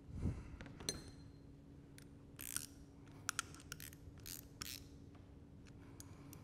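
Wrench tightening the small bolts of the clean-out port plug on a Schmidt TeraValve body: a string of faint, irregular metal clicks and scrapes, a few a second, over a steady low hum.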